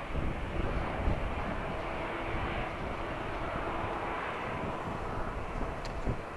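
Airbus A321 airliner's jet engines running steadily as it taxis: a continuous whine over a rushing noise.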